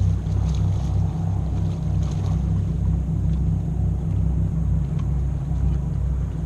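Boat engine running with a low, steady, pulsing throb, with a few faint clicks over it.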